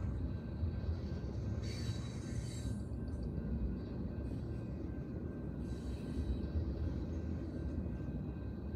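Freight train of tank cars rolling past close by: a steady low rumble of wheels on rail, with a brief high-pitched squeal about two seconds in.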